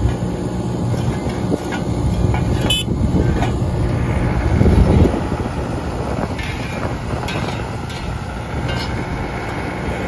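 Asphalt paver's diesel engine running steadily at close range, with scattered clicks and knocks of work around it. A louder rumble swells about five seconds in.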